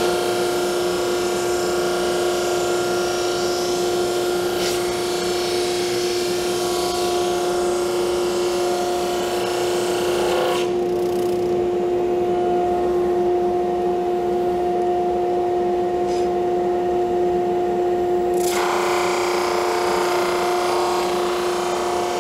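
A single-ended drum sander running with a steady hum, a hardwood veneer piece passing through with a sanding hiss. The hiss stops about ten seconds in as the piece clears the drum, leaving only the machine's hum, and starts again some eight seconds later with the next pass.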